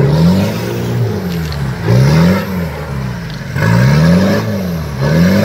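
Off-road 4x4's engine revving hard again and again, about four times, as it wades through water up to its windows under heavy load.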